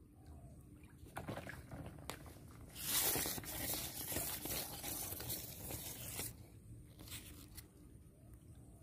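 Water splashing for about three seconds, starting sharply, as a small hooked fish is pulled out of a shallow stream on a pole-and-line rig. Before and after it come a few light clicks of handling.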